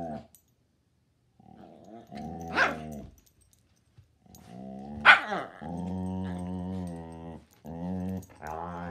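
Two dogs play-fighting, growling in long rumbling stretches with short pauses. Sharp barks or yips cut through about two and a half and five seconds in, and the second is the loudest sound.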